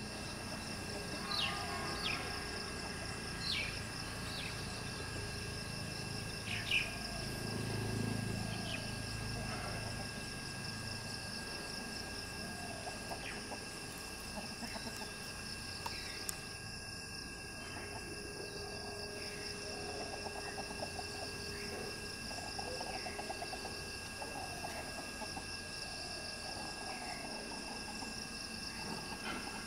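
Chickens clucking softly in low, rapid runs, mostly in the second half, over a steady high-pitched drone of insects. Small birds chirp with short, sharp notes several times in the first few seconds.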